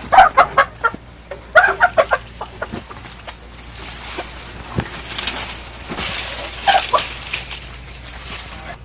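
Chickens clucking and squawking in quick runs of short calls, with a brief rustling noise about five seconds in.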